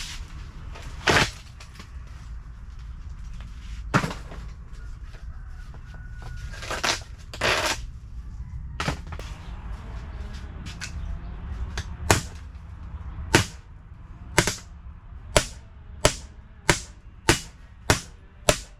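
Hammer blows on metal, knocking at rusted, seized screws to break them loose. A few sharp strikes spaced seconds apart, then a quicker run of strikes about twice a second near the end.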